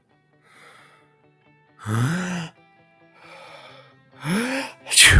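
A person's drawn-out sneeze: a series of gasping, catching 'ah' breaths, then a loud, sharp 'choo' near the end. Quiet music plays underneath.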